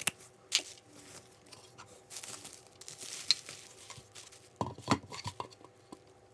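Packaging being handled by hand: crinkling and tearing, with scattered sharp clicks and a short cluster of knocks about five seconds in.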